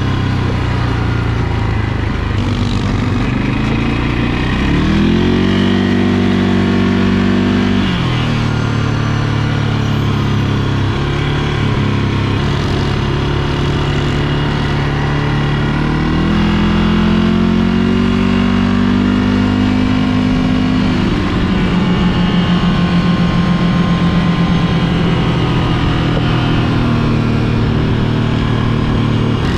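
ATV engine running under load on a trail ride, its pitch climbing as the throttle opens about five seconds in, holding, then dropping back near eight seconds; it climbs again around sixteen seconds and falls away near twenty, with a rougher, pulsing sound after that.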